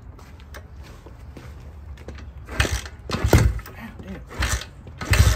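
A 140 cc single-cylinder dirt bike engine being kick-started. About two and a half seconds in, four loud kicks come roughly a second apart, each a short burst as the kickstarter turns the engine over, and the engine does not catch.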